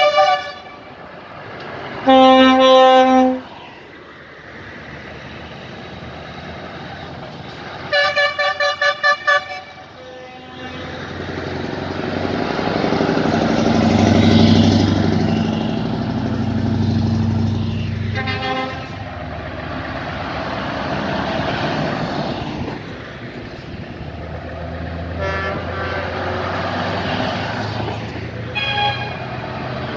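Horns of heavy trucks in a passing convoy: a long blast about two seconds in, then a quick run of short toots. A truck's diesel engine then rises and falls as it drives close past, with a few fainter horn toots later.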